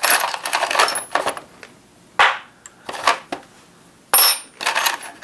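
Small metal hand tools and parts clattering and clinking in a plastic toolbox as a hand rummages through it, in several short bursts with pauses between.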